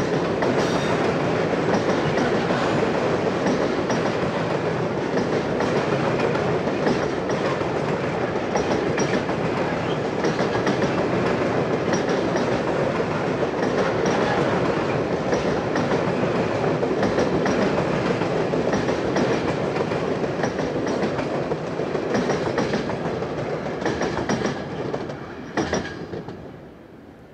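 Freight wagons loaded with steel pipes rolling past: a steady rumble of wheels on rail with repeated clicks over the rail joints. Near the end there is one sharp click, and then the sound fades as the last wagon goes by.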